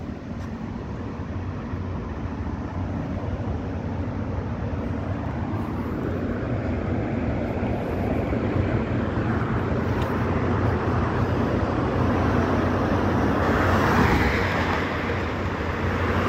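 A motor vehicle engine running with road noise, getting gradually louder.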